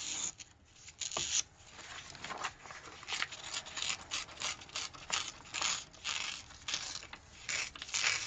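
Craft paper being torn by hand and rustled: a run of short, irregular ripping and crinkling sounds.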